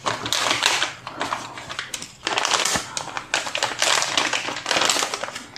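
Metallic anti-static bag crinkling and rustling as it is handled with a graphics card sealed inside, in four bursts of about a second each.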